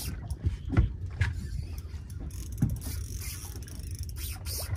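A fishing reel being cranked on a retrieve: a mechanical whirring with a few light knocks, over a steady low rumble.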